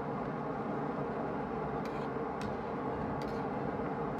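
Braised lamb ribs and carrots simmering in a wok, a steady bubbling, with a few light clicks of a metal ladle against the wok in the middle.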